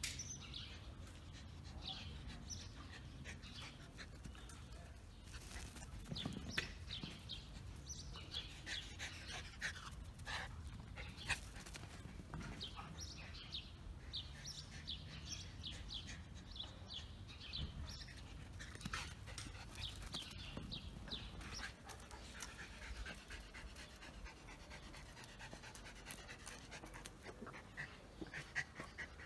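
German spitz dog panting after running for its ball.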